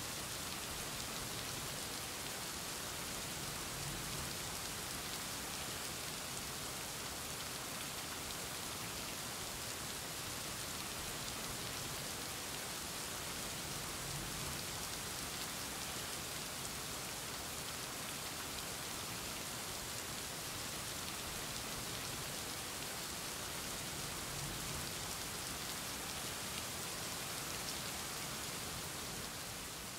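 Steady rain falling, an even hiss with no breaks, starting to fade out at the very end.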